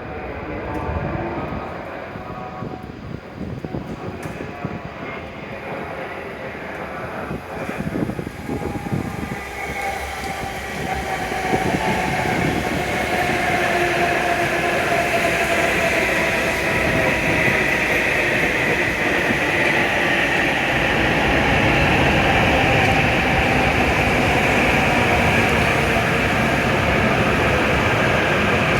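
W7 series Shinkansen train pulling into a station platform. Its running noise grows louder from about ten seconds in, with a steady whine over it.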